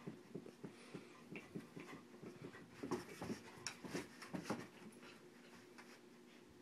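English mastiff puppy panting in quick, rhythmic breaths as it humps a plush rocking horse. The breaths are loudest about halfway through and fade away near the end.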